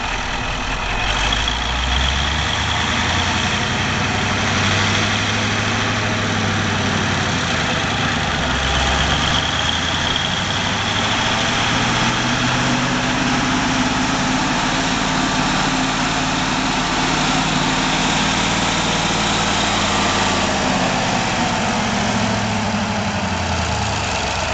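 Trojan wheel loader's engine running as the big machine drives, its pitch shifting up and down with the throttle.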